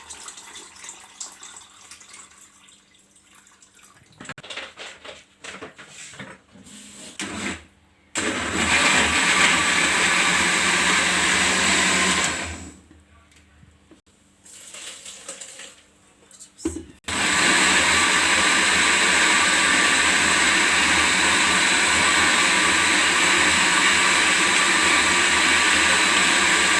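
Electric blender grinding whole peeled lemons with mint, sugar and water: a few handling knocks, then a steady run of about four seconds. After a short pause it runs again for about ten seconds, then cuts off.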